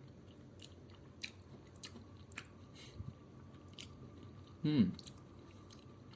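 A person chewing a mouthful of curry rice and chicken with chili sauce: soft, scattered mouth clicks and smacks. A brief vocal sound comes about three quarters of the way through.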